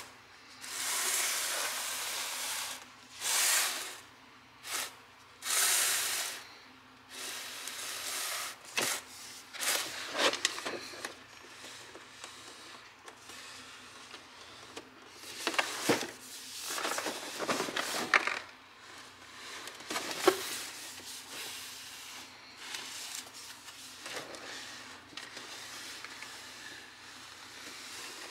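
Cardboard box being handled and shifted, giving irregular rubbing and scraping noises with a few light knocks.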